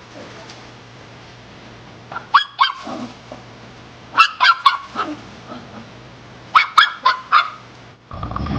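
A dog giving short, high-pitched yelps in three quick bursts of a few notes each.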